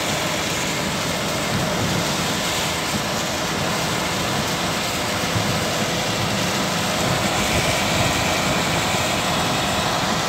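Steady road noise of a car driving at speed on a wet road in heavy rain, heard from inside the car: an even, unbroken rush of tyres on wet tarmac, wind and engine.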